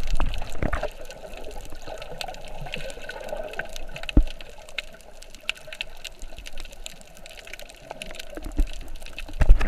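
Seawater sloshing and bubbling around an underwater camera just below the surface, loudest in the first second and again near the end, with many faint scattered clicks in the quieter stretch between.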